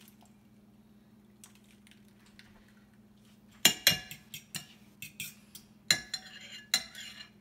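Metal fork beating raw eggs for an egg wash in a ceramic bowl, clinking against the bowl in a quick, irregular run of strokes that starts about three and a half seconds in.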